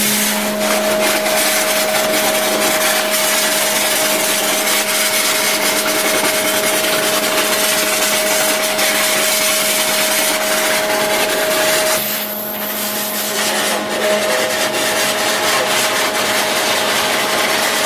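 Flow International I-4800 CNC waterjet (60,000 psi) running: a loud, steady hiss of the water jet over a steady machine hum. The hiss drops for a moment about twelve seconds in.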